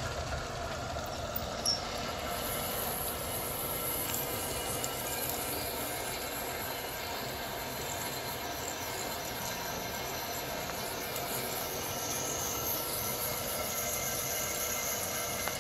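Homecraft drill press motor running steadily while a twist bit drills into thick steel plate, with a high squeal from the bit cutting the steel from a couple of seconds in to near the end.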